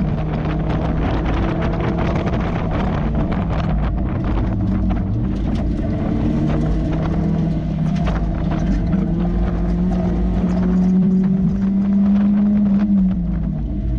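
Mazda Miata four-cylinder engine driven hard on a race track, heard from inside the open cockpit with wind noise. The engine note falls as the car slows for a corner about a second in, holds steady, climbs under acceleration, then drops sharply near the end as the car slows again.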